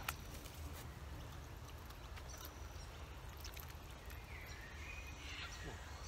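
Quiet outdoor background: a low steady rumble, with a few faint high chirps and small clicks scattered through it.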